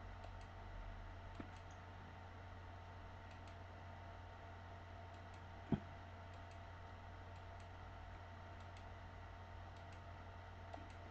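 Faint computer mouse clicks, scattered about one to two a second, placing the points of a polygonal lasso selection, over a steady low electrical hum. A single dull thump about six seconds in is the loudest sound.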